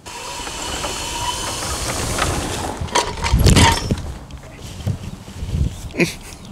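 Permobil C300 powerchair's F3 drive motors, on a 120 amp controller turned all the way up, whining under heavy load as the chair drives across grass. About three seconds in comes a loud clattering crash as the chair tips over, followed by scattered knocks and rustling.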